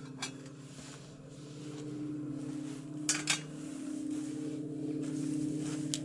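Portable camping gas stove burning with a steady hum and hiss, while a stainless-steel Turkish double teapot is set on its grate with sharp metal clinks: one soon after the start, a louder pair about halfway through and one more near the end.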